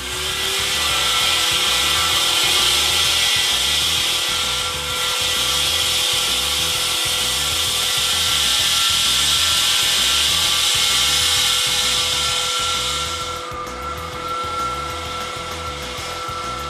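Hilti electric wall saw's diamond blade cutting concrete: a steady, loud grinding hiss over a steady hum, the grinding dropping away about thirteen seconds in. Background music with a beat runs underneath.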